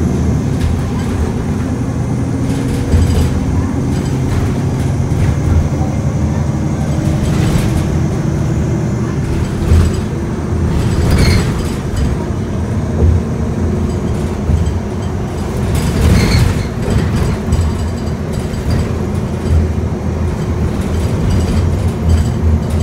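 Inside a 2009 NovaBus LFS city bus under way: the diesel engine running with road noise, its note rising and falling as the bus speeds up and slows. A few short knocks or rattles come through partway along.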